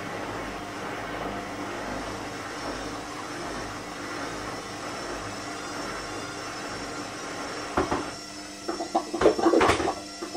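Hot water being poured from a stovetop kettle into a mug, a steady splashing hiss. Near the end come several sharp knocks and clinks as the kettle is put down and the mug handled.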